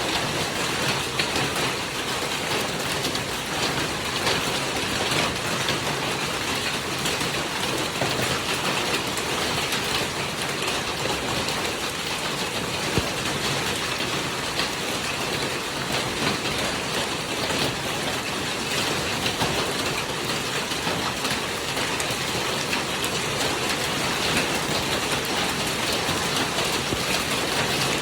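Hailstorm: hail and rain pelting down in a dense, steady hiss of countless small impacts, with no letup.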